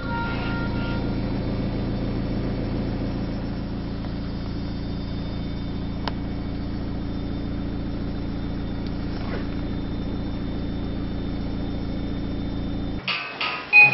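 A car's engine and road noise as heard inside the cabin while driving: a steady low running hum, with a single faint click about six seconds in. Near the end it cuts off abruptly and plucked guitar music starts.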